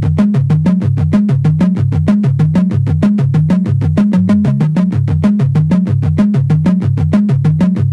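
Electronic background music: a synthesizer bass line over a fast, even beat.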